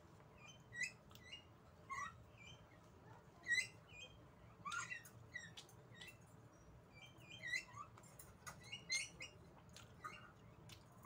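Close-up wet chewing and lip-smacking: a person eating a mouthful of food, giving an irregular string of short squeaky smacks and clicks, several a second at times.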